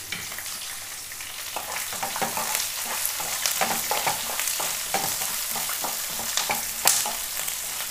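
Chopped onions and curry leaves sizzling in hot coconut oil in a nonstick kadai, with a spatula scraping and tapping against the pan as they are stirred from about a second and a half in.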